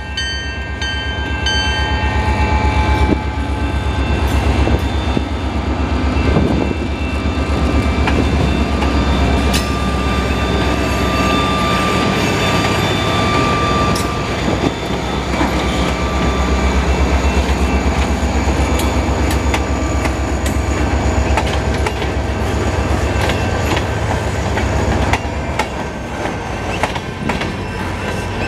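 A CN SD40-2W diesel-electric locomotive's horn ends about two seconds in as the locomotive comes past, its EMD 16-cylinder two-stroke diesel running loud under load as it pulls the train. Near the end the engine sound gives way to box cars clicking over the rail joints.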